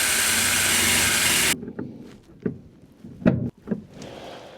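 A loud, steady hiss that starts abruptly and cuts off sharply after about a second and a half, followed by a few scattered knocks.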